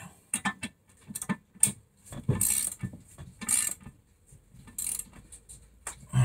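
Hand ratchet wrench clicking in short runs as the brake caliper's bolts are tightened, with separate single clicks between the runs.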